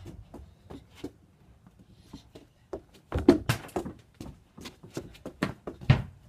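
Quick footsteps and scuffs close to the microphone: a run of short knocks, about three or four a second, starting about three seconds in, loudest at the start of the run and again near the end.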